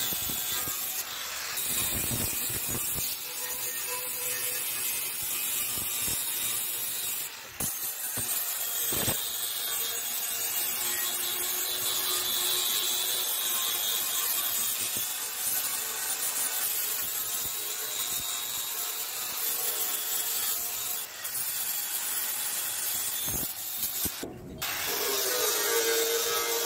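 Steady abrasive rubbing and scraping on rusty metal, as rust is sanded or brushed off a table, breaking off briefly a few times.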